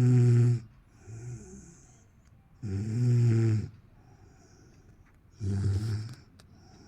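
A person snoring in slow, regular breaths: three loud, low buzzing snores, one fading just after the start, one about three seconds in and one about five and a half seconds in, with quieter breaths between them.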